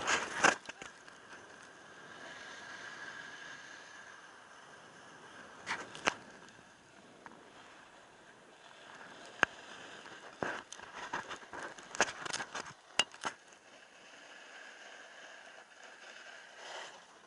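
Skis or board edges hissing and scraping over groomed snow on a fast downhill run, with sharp clicks and knocks now and then, several in quick succession past the middle.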